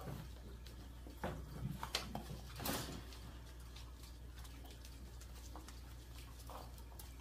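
Australian Shepherd puppies and a small dog moving about the play area: scattered light clicks and patter of paws and claws, with a few short faint animal noises, the loudest just under three seconds in.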